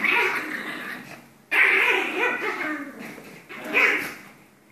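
Two Pomeranians barking and growling at each other as they play-fight, in three bursts with short pauses between.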